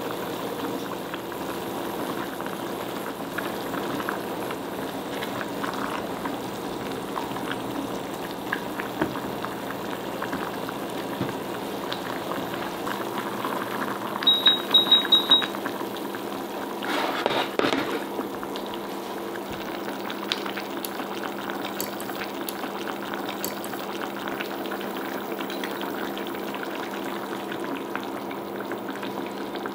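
Nikujaga broth simmering and bubbling in a stainless saucepan on an induction hob, over a steady hum. About halfway through come four short, high beeps from the hob's touch controls as the heat is turned down, followed a couple of seconds later by a brief rustling burst.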